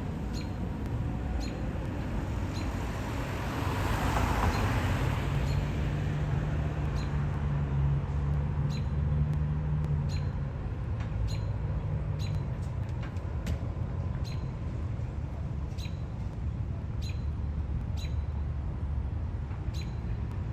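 Steady road traffic rumble: a vehicle passes a few seconds in and a heavier engine drones through the middle. A short, high tick repeats about once a second over it.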